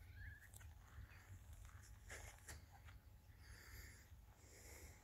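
Near silence with faint distant bird calls: a short wavering whistle at the start and soft chirps near the end. A few soft clicks and rustles come about two seconds in.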